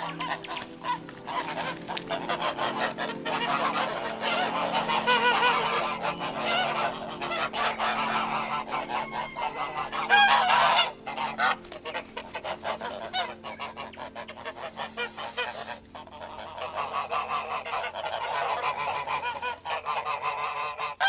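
Geese honking, many calls overlapping, with a louder run of honks about ten seconds in.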